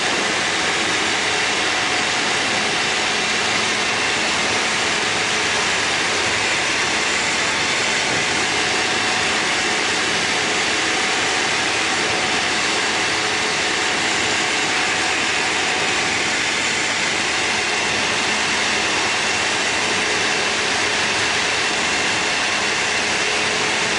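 Steady cabin drone of a Tecnam P92 Eaglet light aircraft in level flight: the engine and propeller run at a constant power setting under a dense rush of air noise, with no change in pitch or level.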